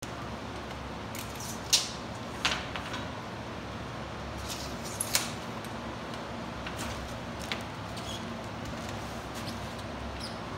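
A handful of sharp, light clicks and taps as a metal drywall T-square and hand tools are handled against a sheet of drywall, the loudest about two seconds in, over a steady low background hum.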